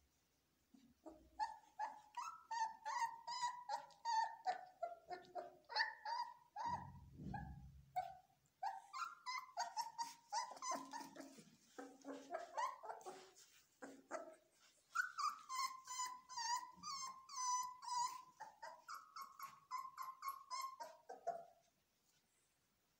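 Belgian Malinois puppies whining and yelping: a long string of short, high-pitched cries, a few of them held longer, that stops near the end.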